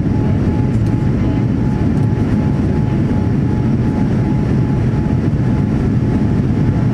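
Steady cabin noise of a Boeing 787-9 in its climb after take-off: the GEnx-1B engines and rushing airflow heard from inside the passenger cabin. A faint, high, steady whine sits over it and fades out about halfway through.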